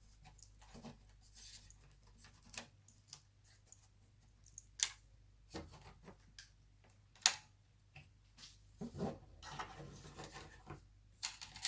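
Faint scattered clicks, taps and rubbing of hands handling small laptop parts and cables, with two sharper clicks about five and seven seconds in.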